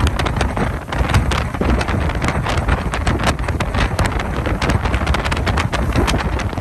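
Wind buffeting the microphone on a moving ferry: a loud, constant low rumble broken by frequent crackling gusts.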